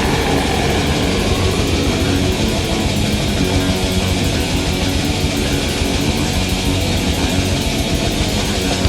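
Black metal from a raw demo recording: loud distorted electric guitars in a dense, unbroken wall of sound over fast, evenly repeated drumming.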